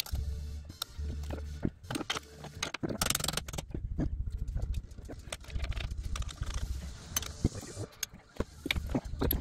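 Metal clinks and clicks of hand tools and suspension parts being handled, many short knocks at irregular intervals over a low pulsing hum.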